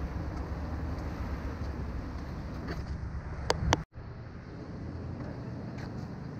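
Wind rumbling on a GoPro's microphone over a steady outdoor street hum, with a few faint clicks. Two sharper clicks come about three and a half seconds in, then the sound cuts out for an instant and comes back weaker.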